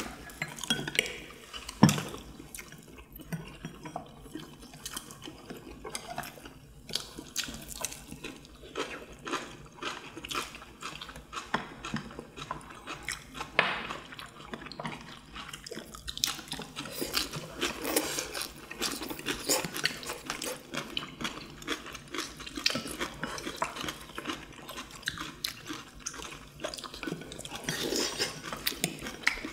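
Several people eating with metal chopsticks: irregular clicks and clinks of chopsticks against ceramic bowls and plates, with wet chewing and slurping, and one sharper clink about two seconds in.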